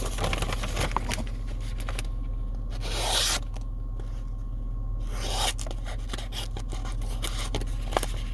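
Scraping and rubbing handling noises as a camera is wedged into a car cup holder and moved about, with two longer scrapes about three and five seconds in, over a steady low hum.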